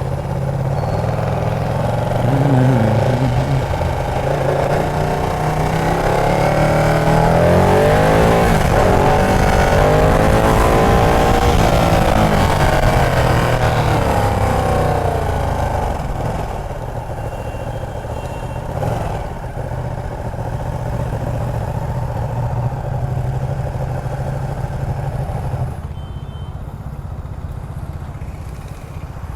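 Ducati Panigale 959's L-twin engine under way in traffic, revs rising and falling as it pulls through the gears. It is loudest in the middle, then settles to a lower, steadier run and quietens again near the end.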